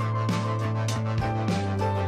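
Background music with a steady beat: bass notes and plucked, guitar-like tones over regular light percussion.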